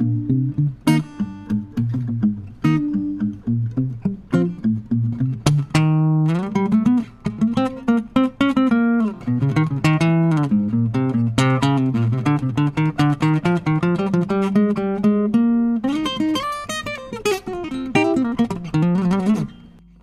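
Segovia FC07 GN acoustic-electric guitar played solo, its Artecs preamp pickup signal blended with a microphone. Plucked notes and chords at first, then a quick run of single notes from about six seconds in, fading away just before the end.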